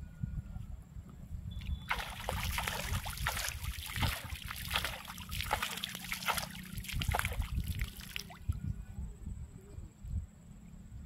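Shallow water splashing and sloshing as a rope line is hauled in by hand through it, a quick run of splashes starting about two seconds in and stopping abruptly about six seconds later.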